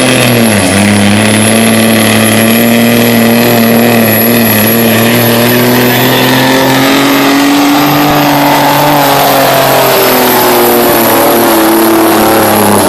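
Semi truck's diesel engine running hard at high revs under load as it pulls the sled. The pitch is held steady, dips slightly about half a second in, and a high steady whistle rides over it throughout.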